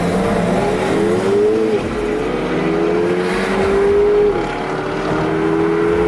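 Sports car engine accelerating hard through the gears, its pitch climbing steadily and dropping sharply at upshifts about two and four and a half seconds in.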